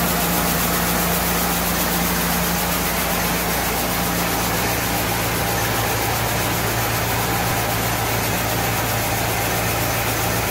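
Coin-operated rice polishing machine running: a steady motor hum and whirr, its low hum settling to a lower pitch about four seconds in.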